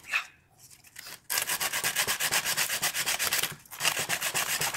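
Sandpaper rubbed by hand over old wood in fast back-and-forth strokes, several a second. The sanding stops briefly about three and a half seconds in, then starts again.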